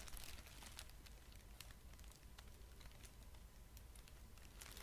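Near silence: room tone with faint, scattered small clicks.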